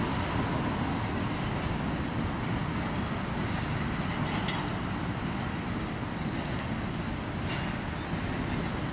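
Freight train of tank cars and boxcars rolling away down the track: a steady low rumble of wheels on rail that slowly fades, with a couple of faint clicks.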